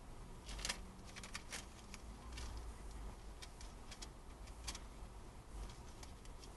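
Quiet interior sound of a waiting car: a low steady rumble with scattered light ticks and clicks at irregular intervals.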